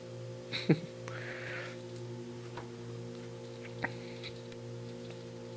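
Steady low electrical hum with a few soft, short clicks and taps, the clearest under a second in and another near four seconds in.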